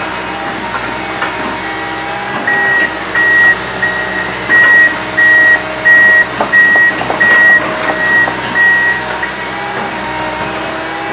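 Komatsu PC160 hydraulic excavator's engine running steadily while a warning alarm beeps about ten times, a little under a second apart, from a couple of seconds in until near the end.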